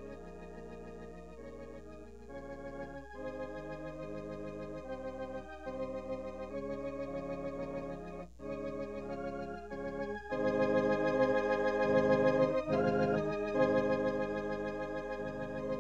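Organ playing slow, sustained chords with a wavering vibrato, the chords changing every second or two and swelling louder about ten seconds in.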